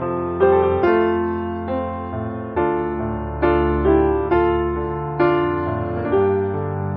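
Background music played on a piano-like keyboard, with a new chord struck a little under once a second.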